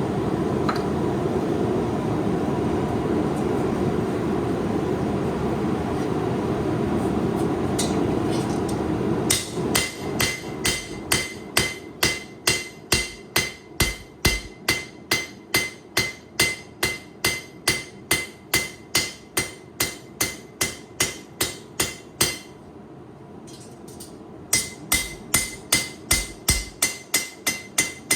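A steady roar for about the first nine seconds, the forge heating the blade. Then a hammer strikes hot 8670 high-carbon steel on an anvil at about two blows a second, each with a short metallic ring, forging out a knife blade's bevels. The blows stop for about two seconds near the end, then resume.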